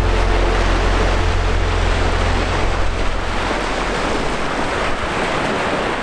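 Surf washing and breaking on a sandy beach, a steady rushing noise. A low rumble runs under it for the first half and dies away about three and a half seconds in.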